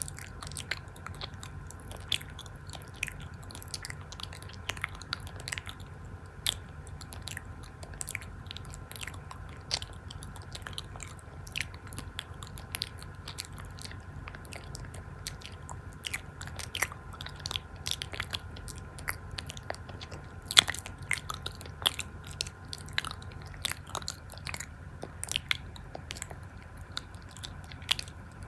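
Close-miked chewing and biting, with sharp crunchy crackles coming irregularly several times a second over a steady low hum.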